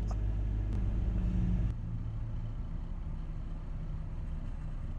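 Car cabin rumble: a steady low engine and road drone that drops suddenly to a quieter rumble a little under two seconds in.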